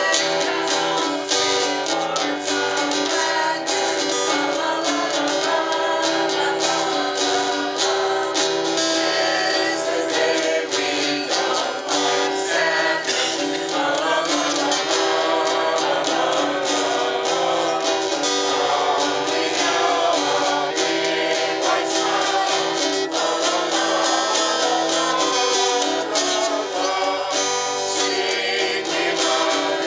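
A woman singing a song while strumming chords on an acoustic guitar.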